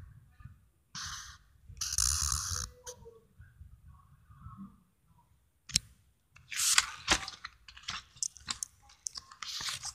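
Marker scratching across a paper page in two strokes, about a second and two seconds in. From about six seconds there is a run of clicks and short scratchy rustles as the spiral notebook is handled.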